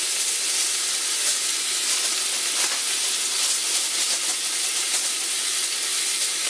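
Bacon-wrapped steak sizzling in a cast iron skillet: a steady hiss with small scattered pops of fat.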